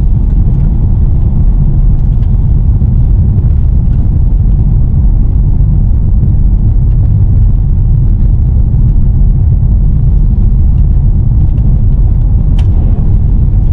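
Steady, loud low road rumble of a car heard from inside the cabin while driving, with a few faint ticks.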